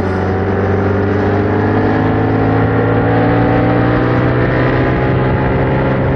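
Yamaha MT-07's 689 cc parallel-twin engine running through its stock exhaust under light throttle. Its pitch rises slowly for the first few seconds, then holds steady.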